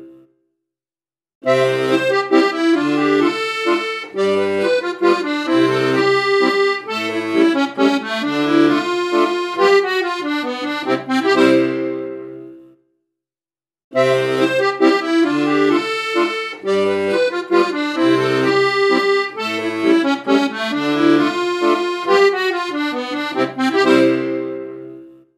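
Instrumental background music with a steady beat, coming in about a second and a half in, dropping out for about a second near the middle and fading out near the end.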